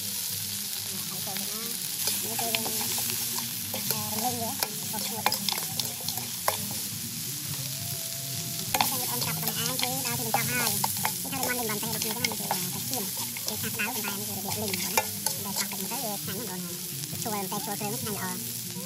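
Lamb sizzling in a hot pan while it is stirred, with many sharp clicks and scrapes of the utensil against the pan over a steady frying hiss.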